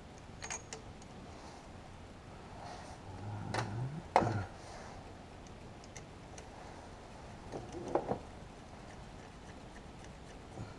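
Sparse metallic clicks and knocks of a socket and extension working on the engine's injector clamp bolts as they are fitted and tightened. A short low rising sound leads into the sharpest click about four seconds in, and a few more clicks come near eight seconds.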